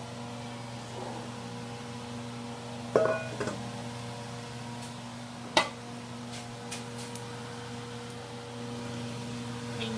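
Two sharp clanks of cookware on the stovetop, about two and a half seconds apart, the first ringing briefly, over a steady electrical hum.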